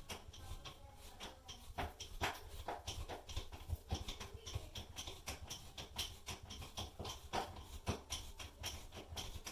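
A screwdriver turning the screw of a molly bolt set in drywall, making irregular clicks and small scraping knocks as the anchor is drawn up against the back of the drywall.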